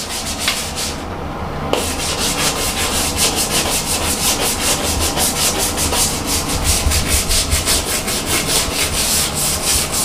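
Rapid back-and-forth scrubbing on bathroom tile, about four or five strokes a second, with a short pause about a second in: hard-water deposits being scrubbed off after muriatic acid was applied.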